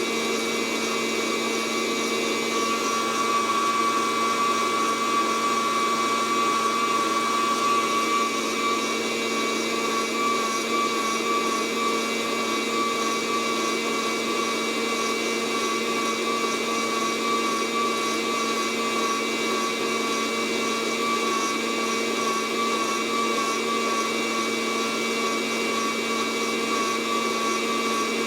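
Fresh Roast SR 800 air roaster running steadily in cool mode: its fan motor gives a high, even whine over a steady rush of blown air.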